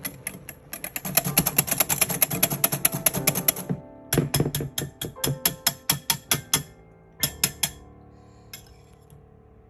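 Wire balloon whisk beaten by hand through stiff meringue in a glass bowl, the wires clicking rapidly against the glass in three spells, stopping about three-quarters of the way in.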